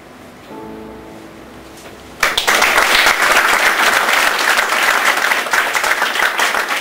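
A last chord on a classical guitar rings and fades. About two seconds in, an audience starts applauding loudly, and the applause carries on.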